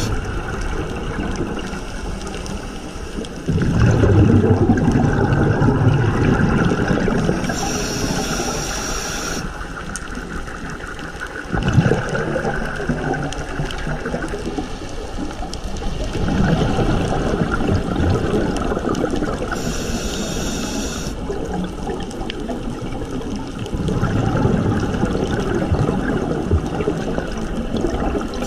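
Scuba diver breathing through a regulator underwater: short hissing inhales alternating with longer, louder bubbling exhales, a breath cycle of roughly twelve seconds. A single sharp knock comes a little before halfway.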